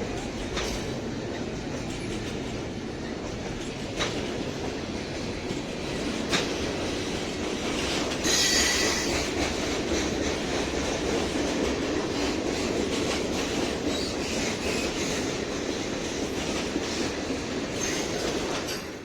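Freight train rolling by on the rails with a steady rumble and occasional wheel clacks, and a brief high-pitched wheel squeal about eight seconds in. The sound cuts off suddenly near the end.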